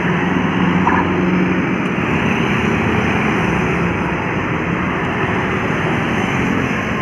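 Road traffic with a bus's diesel engine running, a steady loud rumble with a low hum that eases after the first couple of seconds.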